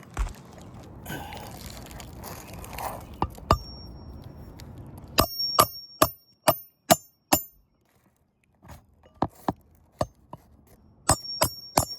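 Hammer driving a roofing nail through a replacement asphalt shingle by hand: a few light taps, then a quick run of about six sharp ringing blows and another run near the end.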